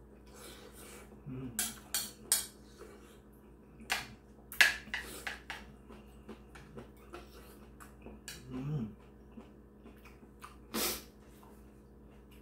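Metal spoon clinking and scraping against a ceramic bowl of stew and rice, with chewing and breathing between spoonfuls. Two brief low hums come from the eater about a second in and past eight seconds.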